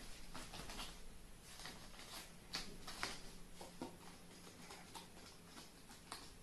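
Carrion crow stepping about on a plastic tarp: faint, irregular taps and rustles of its feet, a few a second, with a couple of sharper clicks about two and a half and three seconds in.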